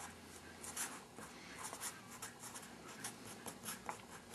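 Felt-tip marker drawing on paper, a run of short, faint, irregular strokes as an arrow is drawn and letters are written.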